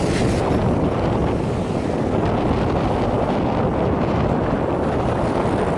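Steady rush of wind on the microphone of a moving motorbike, mixed with the bike's engine and road noise.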